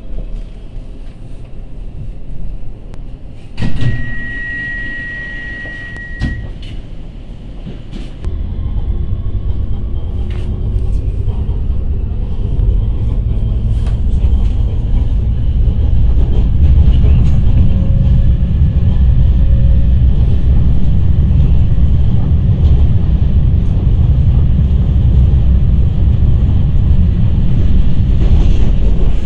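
Electric suburban train running, heard from inside the carriage: a low rumble of wheels on track that grows much louder about eight seconds in and then stays steady. About four seconds in a sharp knock is followed by a high steady tone lasting a couple of seconds.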